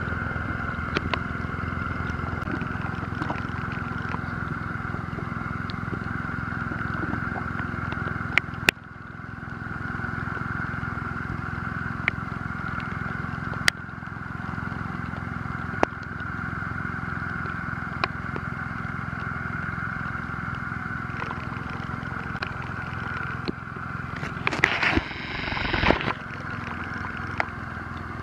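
A motor drones steadily, with a few sharp clicks and knocks and a brief louder rush of noise near the end.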